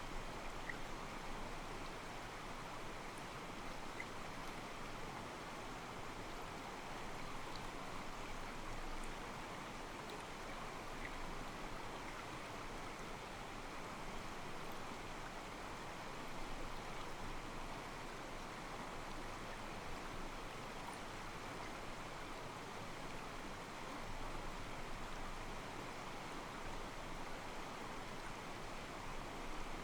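Mountain stream flowing steadily, its water sloshing softly against rocks, with a few faint, brief high chirps of birds.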